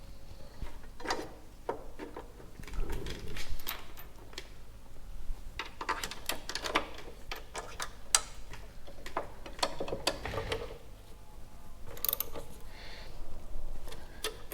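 Hand tools and metal parts being worked: irregular metallic clicks, clinks and short scrapes, some of them ratchet-like.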